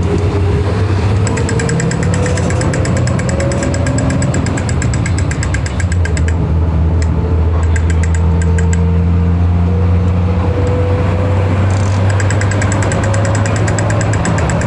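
City bus engine running with a steady low drone, heard from aboard the bus, with a faint whine slowly rising in pitch. Stretches of rapid, fast ticking or rattling come in about a second in and again near the end.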